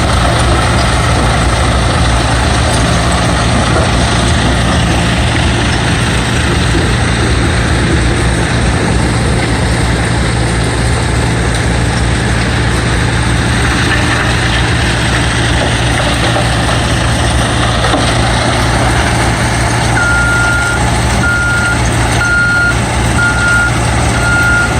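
Rebel mobile jaw crusher and screening plant running steadily while processing demolition concrete: a loud, dense machinery noise over a low, steady diesel engine hum. About 20 seconds in, a machine's reverse alarm starts beeping, about one and a half beeps a second.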